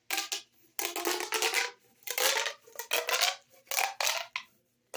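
Plastic pop tubes, ribbed corrugated fidget tubes, being stretched out and squashed back. Each stroke gives a quick ratcheting run of pops, repeated about once a second.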